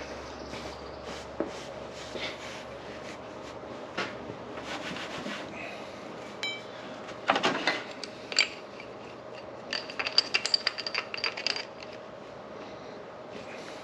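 Metal tools and parts clinking, knocking and scraping as they are handled, with a loud clatter about halfway through and a quick run of sharp clicks near the end.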